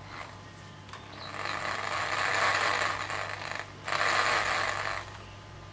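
Sanding drum on an electric drill grinding the end of a wooden knife-handle block: a rough, scratchy rasp that starts about a second in, breaks off briefly near the middle, then resumes and stops shortly before the end.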